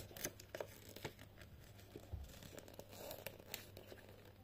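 Faint crinkling and scattered small ticks of a sticker being picked at and peeled from its paper backing sheet.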